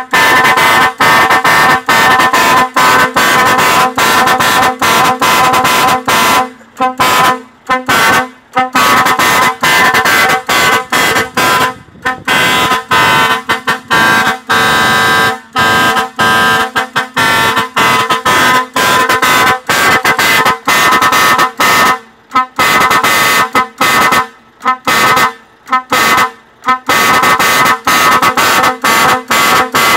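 A set of several truck-mounted chrome trumpet air horns blasting together as a chord, loud and played as a fast rhythmic stutter of short honks, with a few longer held blasts in the middle.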